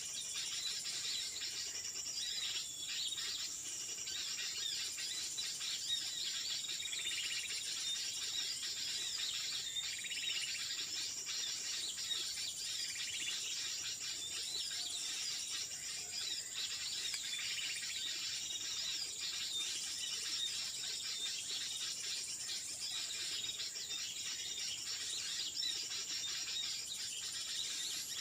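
Steady high insect drone, such as cicadas or crickets, with a dense chatter of small bird chirps and calls over it.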